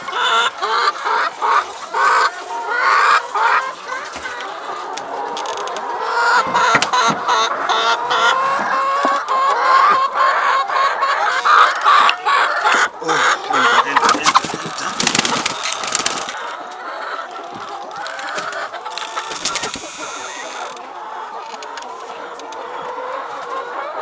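A flock of laying hens clucking and squawking continuously, with scattered clicks and knocks. Two short rushes of noise come in the second half.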